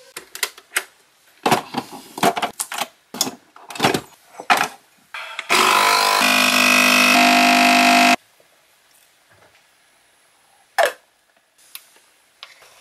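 Coffee machine's pump buzzing steadily for about two and a half seconds as it brews, after a run of clicks and clatter from handling the machine and cups. A single knock follows, and small clicks near the end.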